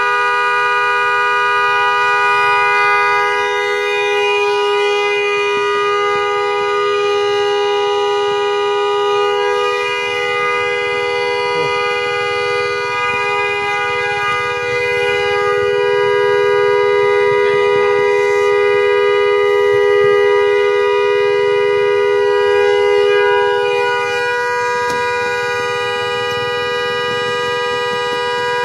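Pickup truck's dual-tone electric horn sounding continuously on its own, a steady two-note chord. About four-fifths of the way through, the lower note drops away and the higher one keeps sounding.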